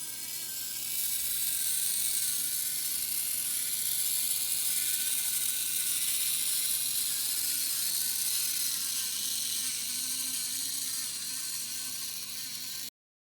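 Brass N scale Shay model locomotive running, its electric motor and geared driveline giving a continuous high-pitched whir with wavering tones. It gets louder about a second in and cuts off suddenly near the end.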